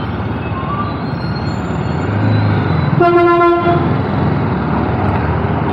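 Steady street-traffic noise around a BMW G 310 R motorcycle's single-cylinder engine riding in city traffic, with a vehicle horn sounding once about three seconds in: a single steady note lasting under a second.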